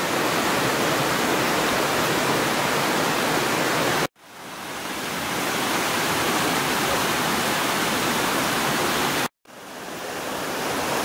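Steady rain falling on a tarp and the surrounding trees, an even hiss. It cuts out abruptly twice and fades back in each time.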